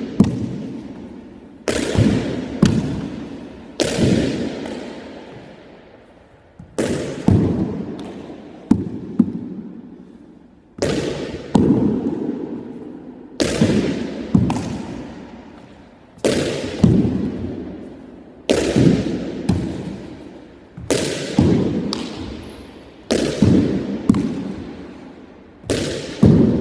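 A pitching-machine ball thrown hard against a wall and fielded off the rebound. Sharp bangs come every two seconds or so, often in pairs about half a second apart, and each rings on with a long echo in the bare walled room.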